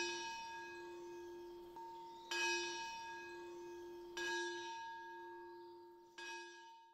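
Closing music of slow bell-like chimes: the same ringing chord struck about every two seconds, each stroke fading away, the last dying out at the very end.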